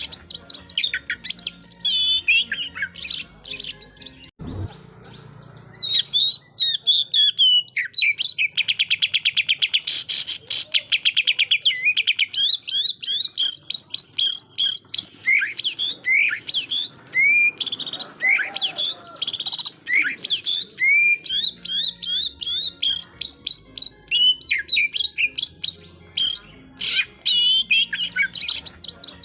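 Oriental magpie-robin (kacer) singing a loud, varied song of clear whistles and fast machine-gun-like trills: the 'tembakan' (shooting) song that riles rival males. The song breaks off briefly with a low thump about four seconds in.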